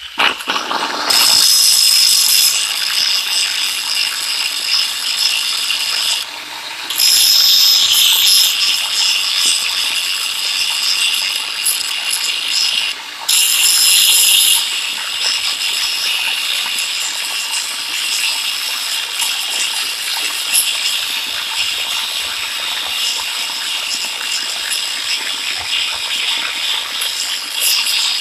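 Electric angle grinder grinding into a steel adjustable wrench with an abrasive disc: a continuous high-pitched grinding noise. It swells louder three times in the first half and dips briefly about six and thirteen seconds in.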